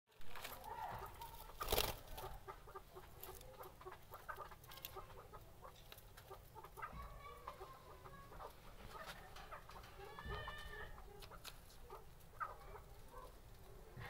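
Birds calling in an aviary: scattered short calls, with a couple of longer calls in the middle. A sharp knock sounds about two seconds in.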